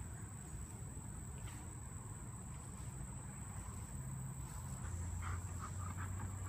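Steady, high-pitched drone of summer insects over a low rumble. Near the end come a few short sounds from dogs playing close by.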